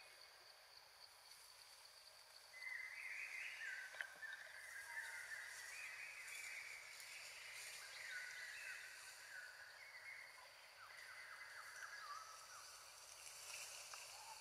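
Faint forest ambience: a bird calls in a chattering run of short notes, starting about two and a half seconds in and dying away near the end, over a steady faint high hiss.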